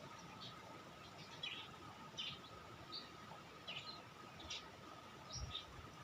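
Small songbirds chirping: short, high chirps at irregular intervals, about one or two a second.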